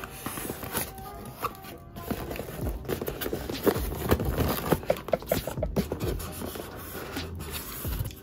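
Plastic building bricks clicking and rattling as they are handled, over background music.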